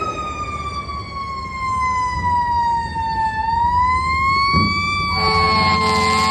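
Fire engine siren wailing on a 2010 Pierce Arrow XT pumper, sliding slowly down in pitch and then back up. About five seconds in, a deeper horn joins, over the low rumble of the truck's engine.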